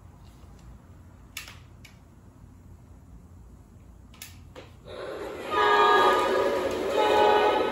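O gauge model Amtrak Genesis diesel locomotive's onboard sound system playing its horn. After a quieter stretch with a few faint clicks, the horn sounds about five seconds in as a long chord blast, breaks briefly, and sounds again near the end.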